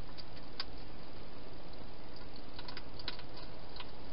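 Wild hedgehog eating from a bowl inside a plastic feeding box: small, irregular crunching clicks, clustered about two and a half to three seconds in, over a steady hiss.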